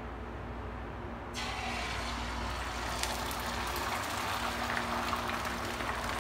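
Beaten eggs poured into hot oil in a frying pan, sizzling and crackling, starting suddenly about a second in.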